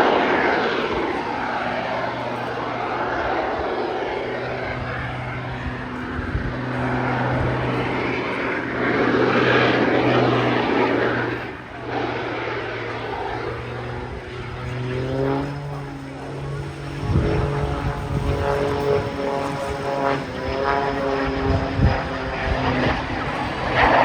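Small single-engine propeller aerobatic aircraft flying a display. The engine and propeller noise swells and fades as the plane passes over a steady low hum. In the second half a clear engine note comes through, its pitch shifting as the plane manoeuvres.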